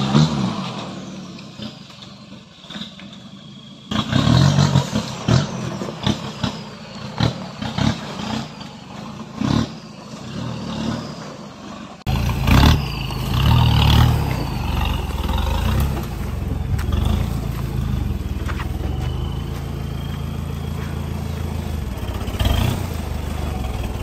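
Lifted Nissan Big-M pickup's engine revving in repeated surges as the truck climbs a steep dirt trail. After about twelve seconds it changes abruptly to a steady run.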